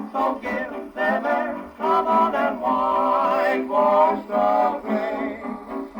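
1932 dance-band 78 rpm record playing on a Victor 2-60 portable gramophone: the band plays with held notes, in a thin sound with no bass.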